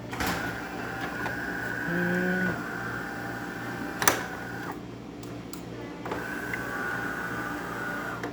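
DeLonghi Magnifica super-automatic espresso machine running its internal motor, a steady whine in two runs with a sharp click between them, over a low steady hum.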